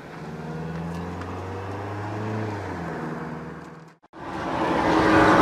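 A motor vehicle's engine hums steadily, swelling and easing over about three seconds. It cuts off abruptly, and after a brief gap a louder sound with several steady tones rises near the end.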